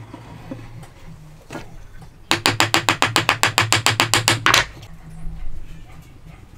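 Small hammer tapping rapidly on a wooden joint, about nine quick, even blows a second for a couple of seconds, driving a wooden key home.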